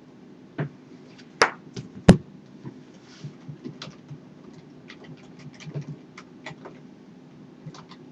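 Computer keyboard keystrokes: irregular, separate clicks, several a second, with two louder sharp knocks about one and a half and two seconds in, over a faint steady hum.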